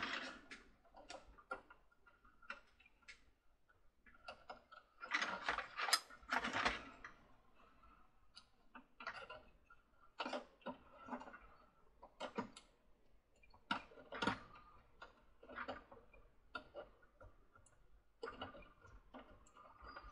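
Small plastic and metal parts of a toy carousel's rotor and motor assembly clicking and tapping under the hands and a pair of tweezers, as the rotor is worked over a stepped shaft that it fits onto tightly. The clicks come irregularly, bunched about five to seven seconds in and again from about ten to fifteen seconds.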